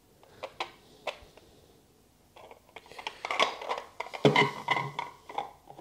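Hard 3D-printed plastic mould pieces being handled: a few light clicks, then a longer run of clattering and scraping as the four quarter sections are fitted together into a cylinder.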